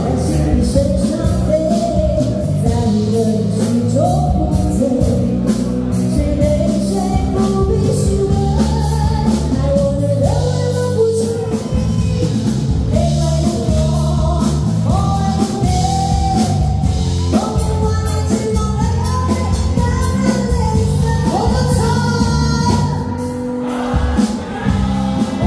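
Live band music: a woman sings a melody into a microphone over electric guitar, bass and drums.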